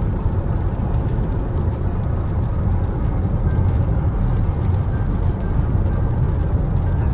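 Steady low rumble of tyre and road noise inside a car's cabin while driving at highway speed on a wet road.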